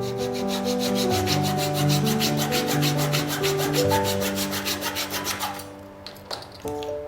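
Sandpaper rubbed quickly back and forth over a small piece of wood, about seven strokes a second. The sanding stops about five and a half seconds in, and a few scattered rubs follow near the end. Soft piano background music plays underneath.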